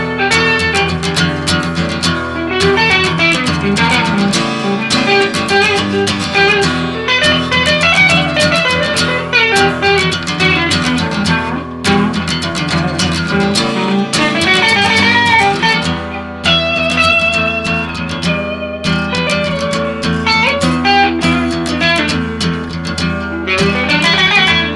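Instrumental break of a band's song, with no singing: guitar playing a busy run of notes over bass.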